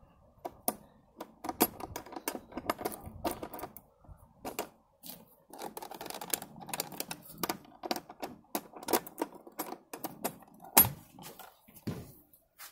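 Key turning in the lock of a SentrySafe FHW40200 file safe, then a run of irregular plastic and metal clicks and knocks as the latch is worked and the lid is opened. The loudest knock comes near the end.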